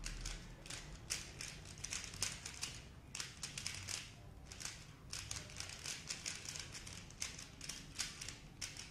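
Dayan ZhanChi 3x3 speed cube being turned rapidly by hand: a fast, irregular run of plastic clicks and clacks as the layers snap round.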